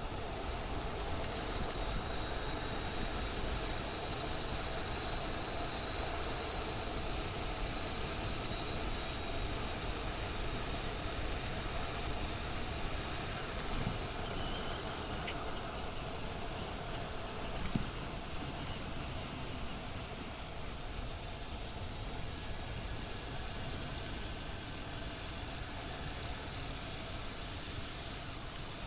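Motorcycle riding at a steady pace: a steady engine note under a constant rush of wind and road noise, with one short knock about two-thirds of the way through.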